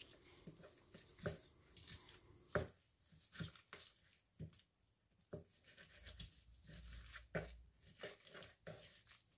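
Kitchen knife cutting and scraping raw chicken leg meat off the bone on a wooden cutting board: faint, scattered taps and clicks of the blade on the board, with the meat being pulled away from the bone.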